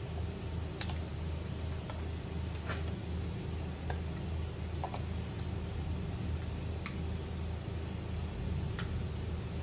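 A few faint clicks of a plastic oil-bottle cap being twisted and worked open by hand, over a steady low hum.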